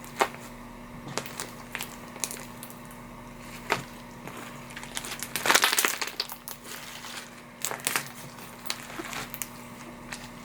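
Hands squishing and stretching slime mixed with foam beads, giving scattered crackles and pops, with a dense burst of crackling about halfway through.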